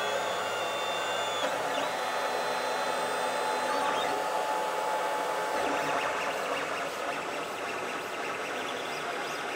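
Lulzbot Taz 5 3D printer running a print: a steady fan whir with thin stepper-motor whines that shift in pitch as the print head moves.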